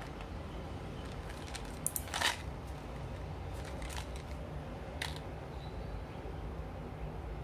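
A plastic supplement bottle being handled and turned in the hands: a few light clicks and plastic rustles, the loudest a short crinkle a couple of seconds in, over a steady low hum.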